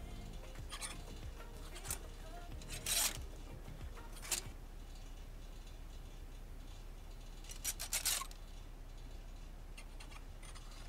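Clothes hangers and garments being handled in a closet: a few short rustling scrapes, the loudest about three seconds in and a cluster near eight seconds.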